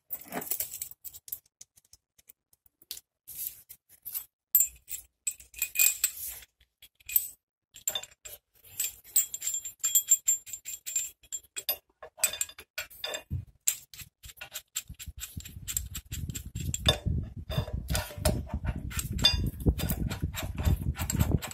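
Metal tool parts clinking and rattling, with short ringing clinks, as a brake caliper wind-back tool and its adapter are handled and fitted to the rear caliper. From about fifteen seconds in, a denser low scraping with rapid clicks as the tool is worked against the caliper.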